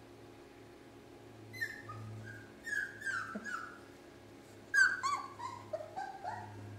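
German shorthaired pointer puppies whimpering and yipping, a string of short, high calls that drop in pitch, coming in two bouts: the first starts about a second and a half in, the second, louder one a little before five seconds.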